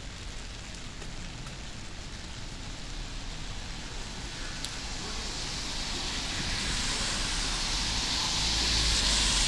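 A car driving up on a wet road, the hiss of its tyres on the wet asphalt growing louder from about halfway through and loudest near the end with a low rumble, over light rain.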